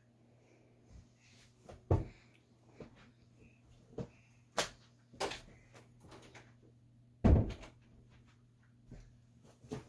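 A handful of irregular knocks and thumps, the loudest about two seconds in and again past seven seconds, over a faint steady hum.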